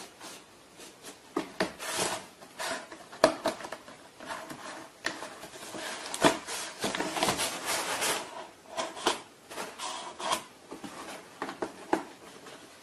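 Irregular rustling and scraping with many sharp taps and knocks, busiest in the middle stretch, in a small room.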